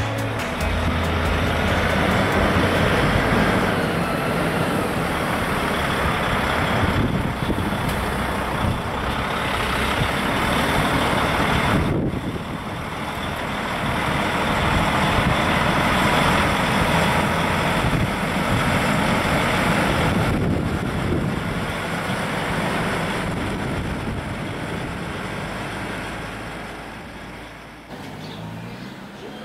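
Heavy road traffic with trucks running close by: a loud, steady engine-and-tyre noise that swells and eases several times, then fades near the end.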